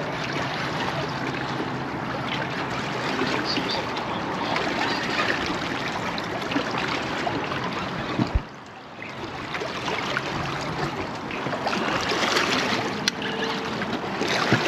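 Water lapping and splashing against a boat hull, with wind on the microphone, as a steady noisy wash. A single sharp knock comes a little past halfway, followed by a brief quieter stretch.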